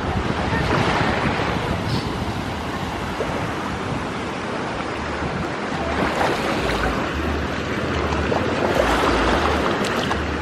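Sea surf washing in and out in slow swells, with wind buffeting the microphone.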